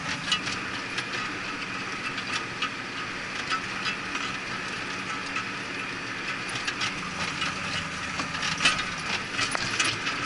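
Cab interior of a Cat Challenger 535B tractor running steadily under load while pulling a tedder, with frequent irregular clicks and rattles over the engine hum.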